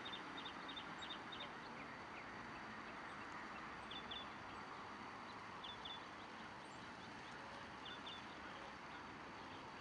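Faint outdoor background hiss with a small bird chirping: a quick run of short high chirps at the start, then a pair of chirps three times.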